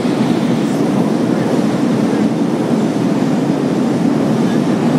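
Steady low rumble of a train crossing the steel deck of the Sydney Harbour Bridge overhead.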